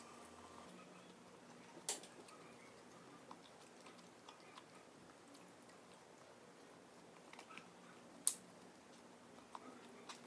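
Faint chewing of crispy chicken nuggets, with scattered small ticks and two sharp clicks, one about two seconds in and a louder one near eight seconds.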